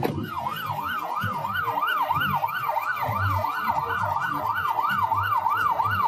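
Ambulance siren on its fast yelp setting: a wailing tone sweeping rapidly up and down, about three times a second.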